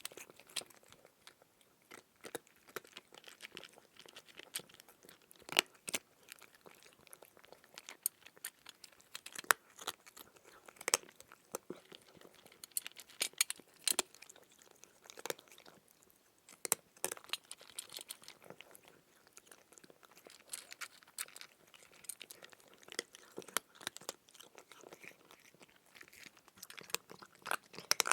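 Close-up crunchy chewing of crisp food: irregular crunches and crackles, several a second, with louder bites every second or two.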